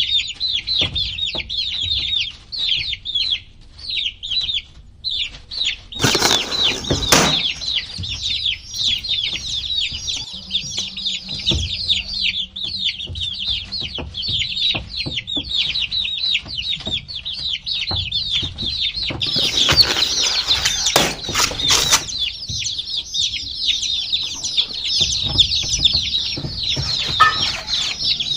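A group of baby chicks peeping in a dense, continuous chorus of short high chirps. Twice, about six seconds in and again around twenty seconds in, a burst of scuffling noise rises over them.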